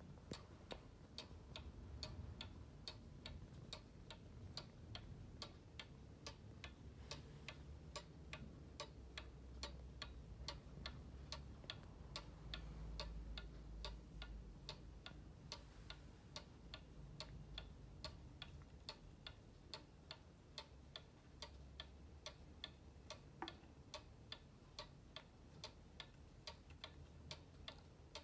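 Vintage Toggili weather-house cuckoo clock's weight-driven pendulum movement ticking at a quick, even pace, soft but distinct.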